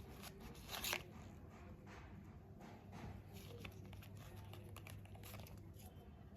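Faint crinkling of plastic packaging with small scattered clicks as hair clips are handled and unpacked, loudest about a second in.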